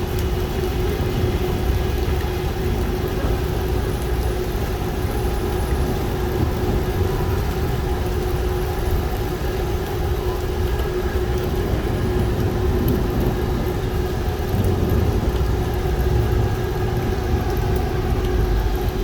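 A steady mechanical hum with one constant pitch over a low rumble, unchanging throughout.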